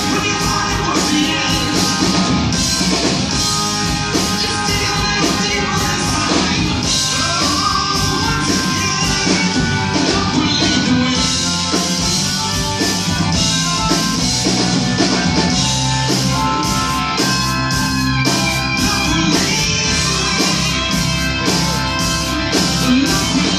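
Live rock band playing at full volume: electric guitars, drum kit and keyboards with singing, heard through the theatre PA.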